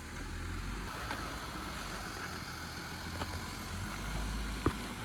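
Jeep Gladiator Rubicon's engine running steadily at low revs as the truck crawls up a hill in four-wheel-drive low. A few sharp knocks break in, the loudest near the end.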